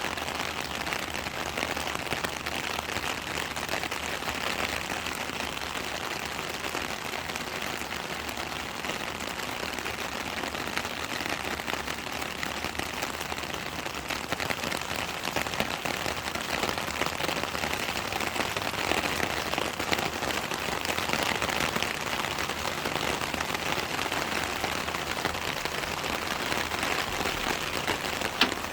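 Steady rain falling: a dense, even patter of individual drop impacts, with one sharper tap near the end.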